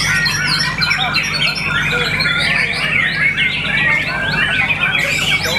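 White-rumped shama (murai batu) singing: a dense, continuous run of quick overlapping chirps, whistles and trills, over a steady low hum.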